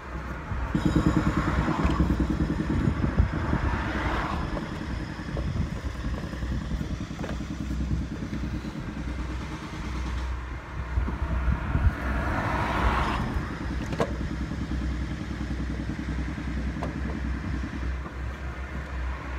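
A motor engine running steadily, starting about a second in, with two swells of rushing noise and a few light clicks.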